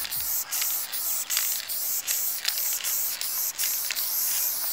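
Aerosol spray-paint can hissing in quick successive bursts, about three a second, with short breaks between them.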